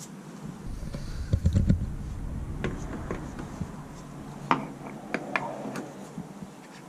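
Engine parts being handled by hand during a starter clutch repair: a series of sharp clicks and light knocks, with a low rumble of handling noise about a second in.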